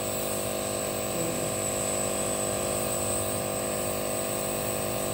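Electric compressor nebulizer running with a steady motor hum, misting medication into a face mask during a breathing treatment for asthma.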